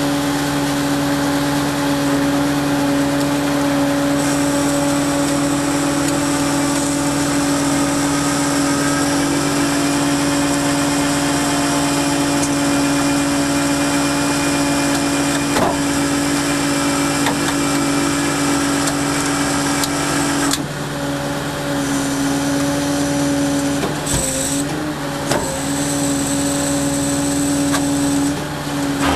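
Truck engine running at a steady speed, an even drone that holds throughout, with a slight change in its sound about two-thirds of the way through.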